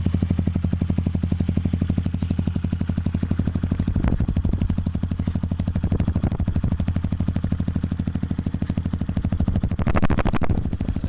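Yamaha WR155R's 155 cc single-cylinder engine idling through an aftermarket Norifumi exhaust pipe, a steady rapid train of exhaust pulses. It gets briefly louder near the end.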